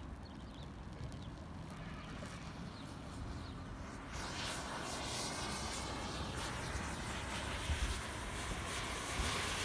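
Rows of matchsticks catching fire one after another with a hissing crackle, which grows louder about four seconds in as the flame reaches the cone of packed matches and it flares up. A steady low rumble runs underneath.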